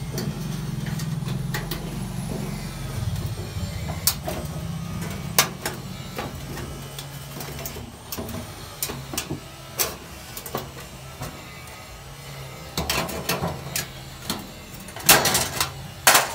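Wire grill rack and galvanized sheet-metal box clinking and rattling as the rack is fitted on and the box is handled, with scattered sharp metal clanks, the loudest near the end. A low steady hum sits underneath for the first several seconds, then fades.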